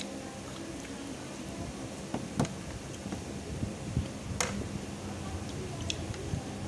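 Eating fried noodles with chopsticks: chewing and slurping, with several sharp clicks of bamboo chopsticks against the metal tray, over a steady low hum.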